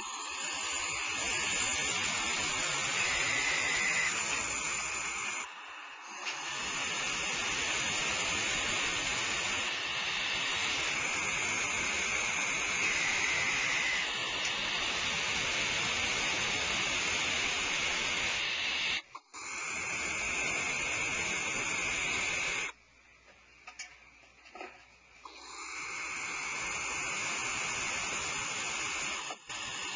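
Barn owls giving long, harsh hissing calls almost without pause. The calls break briefly about six and nineteen seconds in, and there is a longer gap of about two seconds past the twenty-second mark.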